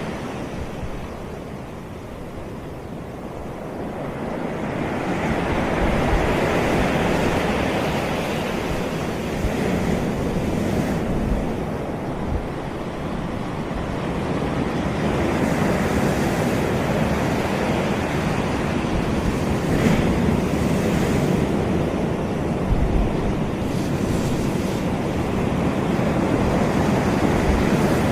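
Caribbean surf: waves breaking and washing up the beach in slow swells, with some wind on the microphone. The wash dips early on and builds again from about four seconds in.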